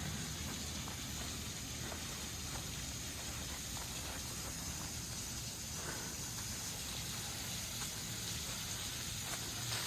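Steady, even rush of a waterfall running low.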